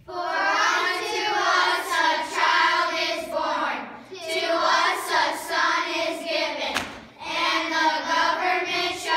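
A group of children singing a song together, in sung phrases with short breaks for breath about four and seven seconds in.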